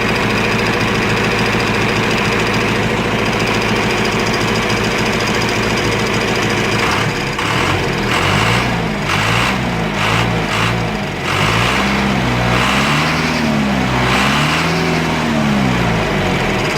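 John Deere 310A backhoe's diesel engine running steadily after a fuel filter change and bleeding of the fuel system; about halfway through its speed starts rising and falling again and again.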